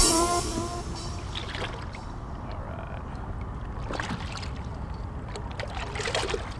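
Music stops at the start. Then come faint water sounds at a kayak's side as a large redfish is lowered in and released, with small splashes and drips and a swirl as it kicks away near the end.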